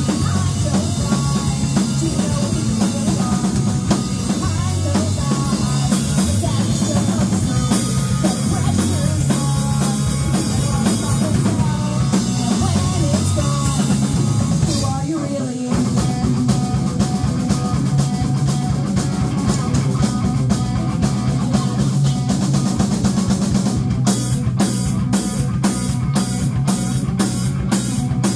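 Live rock band playing through a PA: electric guitars and a drum kit, with a singer on vocals for the first half. About halfway through the music drops out for a moment, then comes back, ending on steady, evenly spaced drum hits about two a second.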